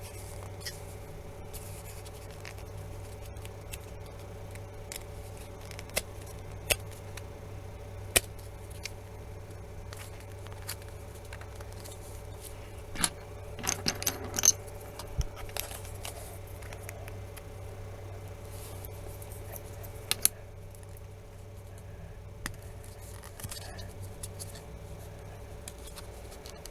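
Scattered sharp clicks and light scraping from handling a phone's plastic parts and a pry tool, with a busier run of clicks about halfway through, over a steady low hum.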